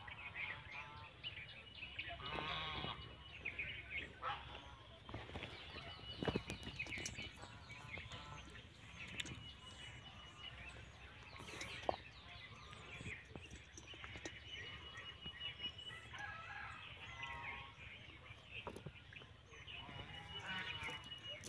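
Outdoor ambience with animal calls: several short pitched calls spread through, with a few sharp clicks in between.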